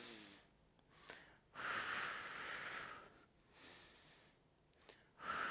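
A woman breathing audibly in and out in time with a slow yoga movement: several faint breaths, one longer one in the middle. A few tiny clicks come just before the end.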